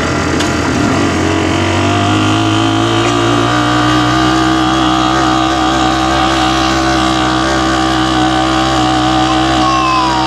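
Vehicle engine running, heard from on board an open-sided passenger vehicle. It picks up a little in the first couple of seconds, then holds a steady pitch over road and wind noise.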